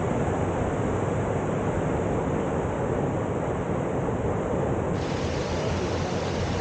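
Steady rushing of river water pouring through a standing river surf wave.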